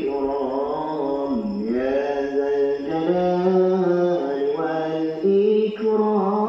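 A man chanting an Arabic zikir munajat, a slow, ornamented melody with long held notes. The pitch slides down and back up about a second and a half in.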